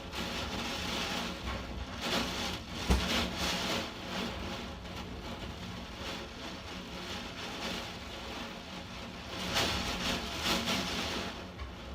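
Storm wind and rain, a steady rushing that swells in two gusts, with a single knock about three seconds in.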